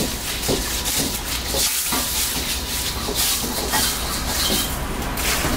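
Bamboo wok brush scrubbing a hot, wet wok: a steady hiss of steam under repeated scraping strokes.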